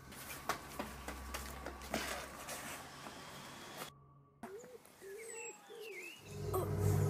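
A pigeon cooing a short run of low hoots, with a smaller bird chirping, after a brief dead silence; a low steady rumble comes in near the end. Before the silence there is only faint room noise with a few soft clicks.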